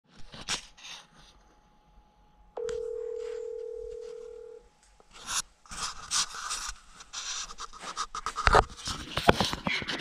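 A single steady beep lasting about two seconds, then handling noise as a camera is picked up and moved about: rustling, clicks and knocks, with one loud thump about 8.5 seconds in.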